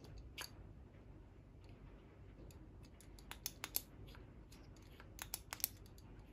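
Scattered sharp clicks and ticks of a metal tactical flashlight and its rail mount being handled and fitted together, in two small clusters after the middle.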